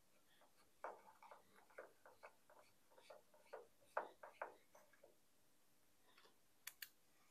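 Pozidriv screwdriver driving a 20 mm screw through a plastic pipe clip into wood: faint, irregular creaking clicks as the screw turns, then two sharp clicks near the end.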